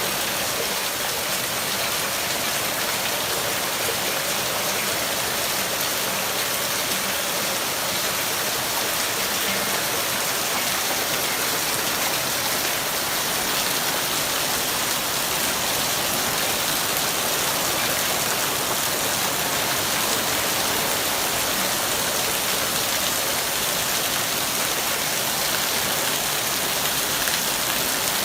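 Heavy rain pouring down steadily in a rainstorm, a dense, even wash of noise.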